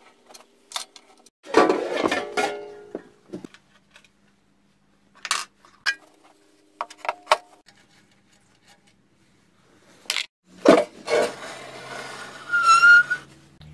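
Metal clinks, knocks and scraping as a pellet boiler's stoker is taken apart by hand, its blast tube and sheet-metal housing knocking together and ringing briefly. There is a louder scraping rattle about two seconds in and again near the end.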